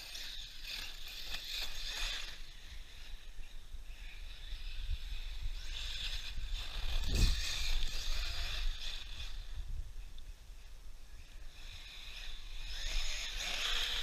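A 6S 1/8-scale RC buggy with a 4268 2200kV brushless motor running on a gravel road, its high-pitched motor whine and tyre noise coming in surges as the throttle is worked. A low wind rumble on the microphone runs under it, with one sharp thump about seven seconds in.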